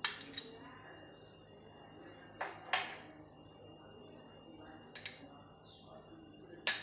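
Scattered light clinks and knocks of stainless-steel kitchenware: the small steel container and the steel mixing bowl knocking together as chopped green chillies are tipped into the sattu. A handful of separate clinks, the sharpest just before the end.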